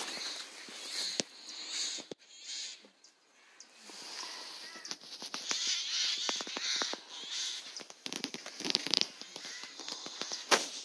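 Dry fallen leaves crackling and rustling underfoot in uneven bursts with sharp little ticks, easing off briefly about two seconds in.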